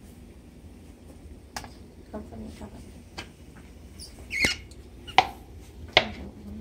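A spatula stirring wet fruit fly media in a plastic container: scattered knocks and scrapes against the container's sides, with short squeaks. The loudest knock comes a little past halfway.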